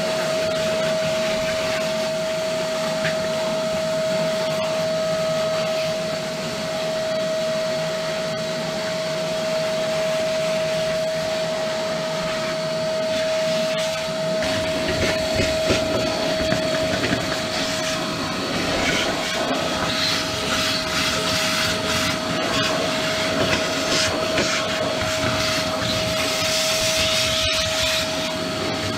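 Vacuum cleaner running with a steady whine as its crevice nozzle is worked along a van's dirty chassis rail, sucking up caked road dirt. The sound gets rougher and noisier from about halfway through as the nozzle works into the dirt.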